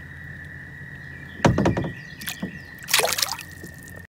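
A bass released by hand at the side of a kayak, splashing in the water as it kicks free, about a second and a half in and again around three seconds.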